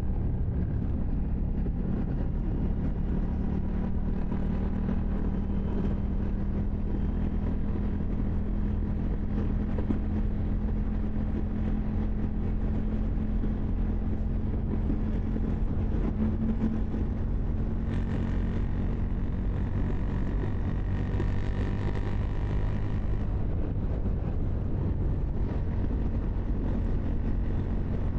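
KTM 790 Duke's parallel-twin engine running at a fairly steady engine speed, its pitch drifting only slowly.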